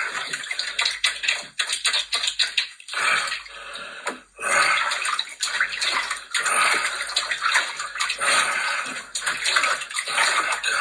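Water splashing in a kitchen sink as a person washes himself by hand, in uneven surges and splashes, with a brief lull about four seconds in.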